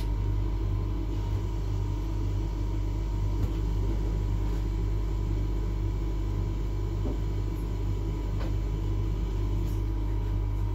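Steady low rumble and hum of a railway passenger coach's onboard machinery running, with a faint steady high tone over it and a few faint clicks.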